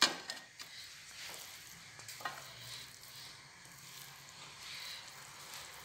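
Hands scooping and spreading diced boiled vegetables into a glass baking dish: soft, faint rustling and squishing of the pieces, with a few light clicks.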